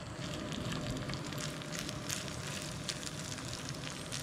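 Rice and duck meat frying on a round black griddle over a portable gas stove: a steady sizzle with many small crackles and pops.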